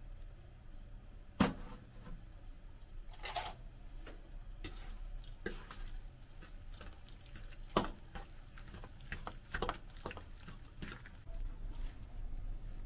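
Metal spoon stirring minced chicken in a stainless steel bowl, clinking and scraping against the bowl at irregular moments, the sharpest clink about a second and a half in.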